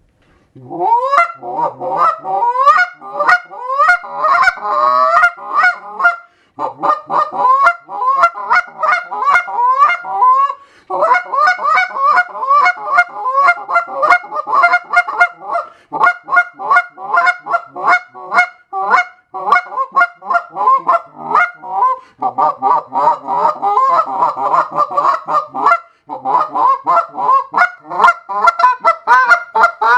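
Big Kahuna goose call with hand-broken-in custom guts, blown in rapid runs of short honks at several notes a second, broken by brief pauses every few seconds. The broken-in guts are meant to give it a hollower, lower, more goose-like tone.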